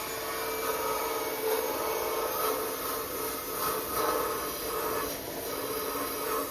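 Cordless drill spinning a wire wheel brush against metal, a steady scratching whir, running on a nearly flat battery.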